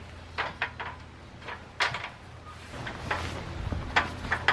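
Aluminium extension ladder knocking and clattering as it is carried and handled: a string of irregular sharp knocks, the loudest about two seconds in and about four seconds in.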